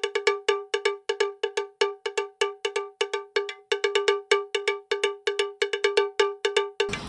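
A fast, even repeating pattern of identical bright, cowbell-like bell strikes at one pitch, several a second, laid on as a music or sound-effect bed. Just before the end, room hiss comes in under the strikes.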